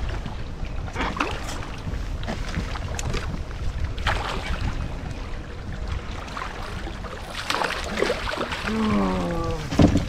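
Water splashing and knocking at a kayak's side as a hooked fish is netted, over wind buffeting the microphone. Near the end comes a short groan falling in pitch, then a sharp knock.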